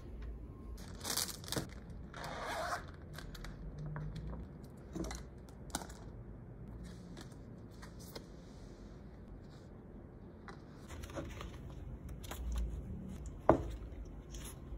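Handling of manga and its extras: short rustles of paper and plastic sleeves with scattered light taps and clicks as a book, a sleeved button badge, a clear card and a postcard are picked up and shuffled, then a paperback's pages are leafed through, with one sharp tap near the end.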